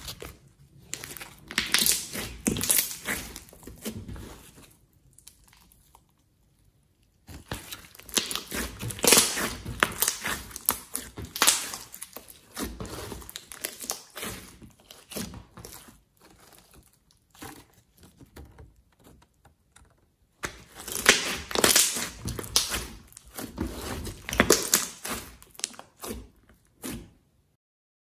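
Hands squishing and kneading a glossy slime, making wet crackling and popping sounds in several bursts with short pauses. The sound stops about a second before the end.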